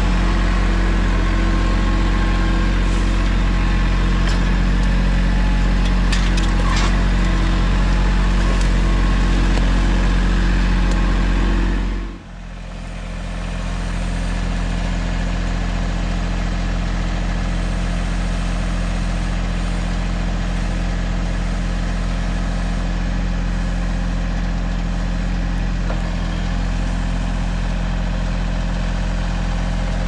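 Mahindra 1626 compact tractor's diesel engine running steadily under the backhoe work. About twelve seconds in, the sound dips sharply and then carries on steady but quieter.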